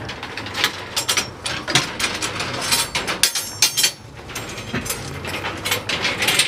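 Steel rebar stirrups being handled on a column's reinforcing cage: the 3/8-inch bars clink and scrape against the vertical bars in a quick, irregular run of sharp metal clicks.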